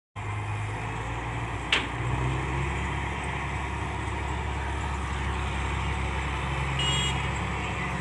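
Malkit 997 combine harvester running steadily as it cuts standing wheat, with its engine and machinery making a constant drone. A single sharp click comes a little under two seconds in.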